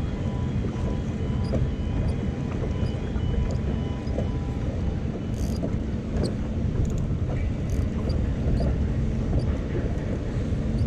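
Steady low engine rumble, with a few faint ticks.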